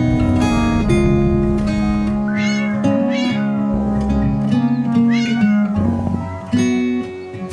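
A cat meowing about four times, short rising-and-falling calls, over background music with plucked guitar.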